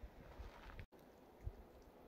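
Near silence: faint outdoor background with a couple of soft low thumps and a brief dead gap a little before the middle.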